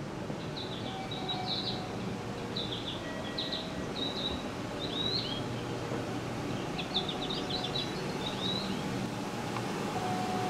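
Bird chirps in several short, quick runs, played from a station guidance speaker, over a steady hum from the standing electric train.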